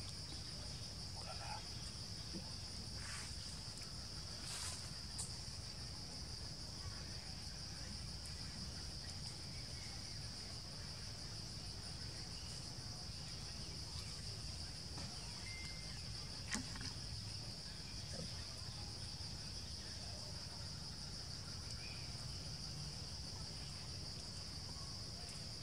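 Steady high-pitched drone of insects in the forest trees, unbroken throughout. A few faint clicks sound over it, with one sharper click a little past the middle.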